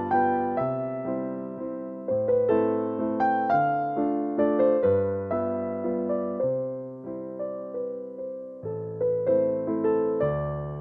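Background piano music: a melody of struck single notes over slower low bass notes.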